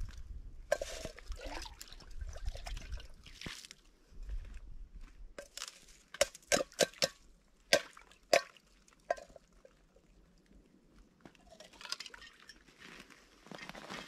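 A pot being dipped and filled in a shallow stream: water sloshing and trickling, with a run of sharp drips and clinks around the middle.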